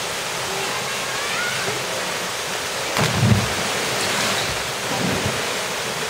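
Waterfall rushing steadily into a rocky pool, with a low thump about three seconds in and a weaker one near the fifth second.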